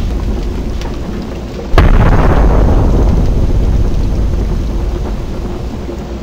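Explosion sound effects. The fading rumble of one blast dies away, then a second blast hits sharply about two seconds in and rumbles on, slowly fading.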